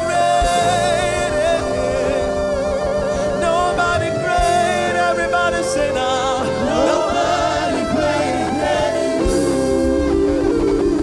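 Gospel praise-and-worship singing: a male lead singer joined by backing singers over instrumental accompaniment.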